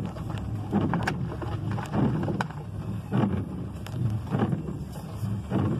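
Low rumble inside a vehicle cab, swelling and easing about once a second, with faint scattered ticks above it.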